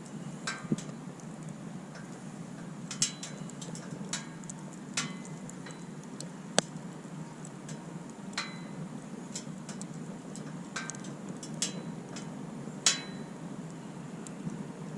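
Wood campfire crackling, with sharp pops at irregular intervals, roughly one a second, over a steady low rushing sound.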